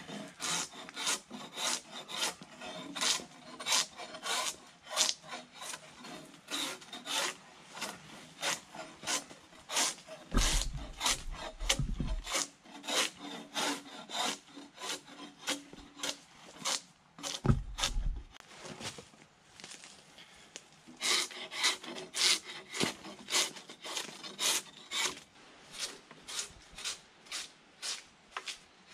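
Drawknife strokes peeling the bark off a silver birch log: a rasping scrape about twice a second, coming in runs with short pauses. Two brief low rumbles come in the middle.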